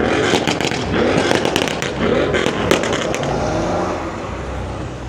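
A car's exhaust popping and crackling in a rapid series of sharp cracks over the first three seconds or so, over the engine running, then settling.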